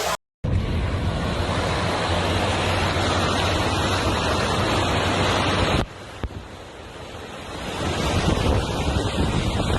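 Rushing floodwater with wind buffeting the microphone, a steady loud roar. It drops out briefly at the start, drops abruptly about six seconds in, then swells back up.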